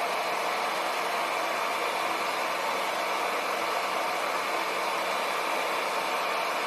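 Steady, even whooshing machine noise with a faint low hum, unchanging throughout.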